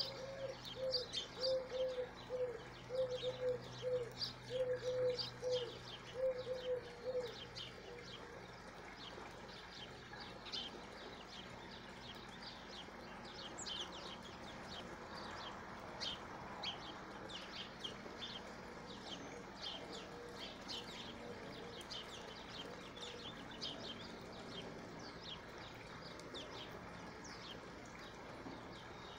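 Small birds chirping in quick, high notes throughout, with a dove cooing in a run of short, repeated low notes for the first seven seconds or so.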